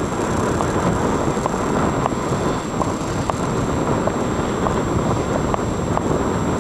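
Wind buffeting the camera's microphone: a steady rushing rumble.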